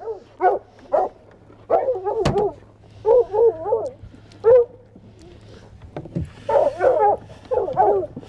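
Hunting hounds giving short, warbling yelps and whines in quick bunches, the excited noise of hounds collared up and waiting to be let loose on a track. A single sharp knock about two seconds in.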